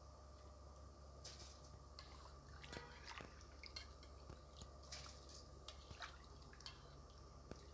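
Near silence with faint, scattered ticks and small pops of water heating in an aluminium pot with whole spices, over a steady low hum. Soaked basmati rice is tipped into the water in the first few seconds.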